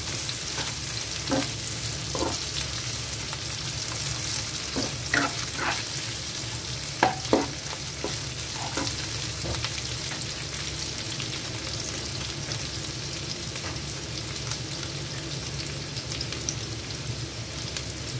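Garlic, shallots and ginger sizzling steadily in a little oil in a frying pan, being sautéed until fragrant, with a utensil clicking and scraping against the pan now and then, sharpest twice about seven seconds in.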